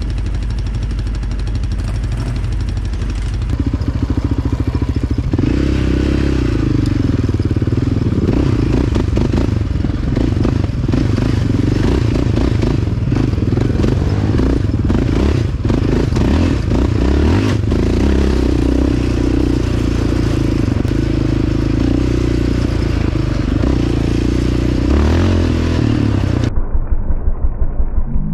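ATV engine running as the quad is ridden along a dirt trail, with clatter and scraping from the machine over rough ground. The engine gets louder a few seconds in. Near the end it changes to a slower, pulsing putter.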